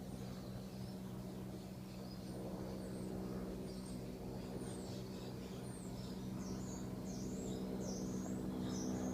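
Birds chirping in short repeated calls over a steady low electrical hum, the chirps starting a couple of seconds in and coming more often toward the end.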